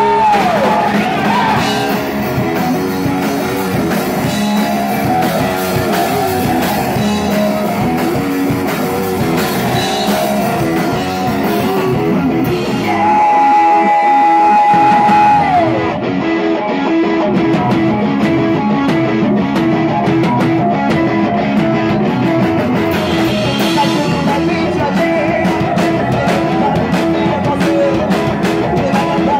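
Three-piece rock band playing live: electric guitar, electric bass and drum kit, with sung lead vocals. About halfway through comes one long held note that bends down at its end.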